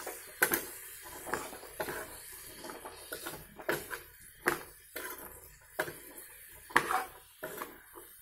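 Utensils clinking and scraping against a steel frying pan as masala is stirred and boiled chickpeas are tipped in from a glass bowl, with sharp clinks about once a second.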